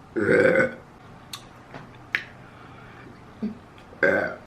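A man belching loudly twice: a burp about half a second long just after the start, and another beginning near the end. A few faint clicks come in between.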